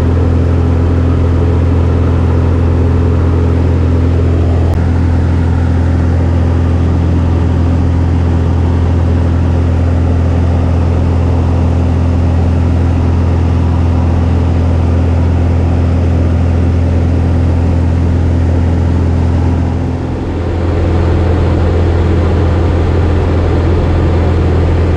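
Single-engine light aircraft's engine and propeller droning steadily, heard from inside the cabin during the climb to jump altitude. The note dips briefly about twenty seconds in, then comes back.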